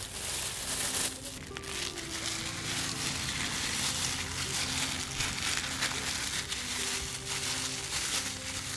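Thin plastic bag crinkling and rustling as hands squeeze and knead raw chicken pieces in marinade inside it, with soft background music notes underneath.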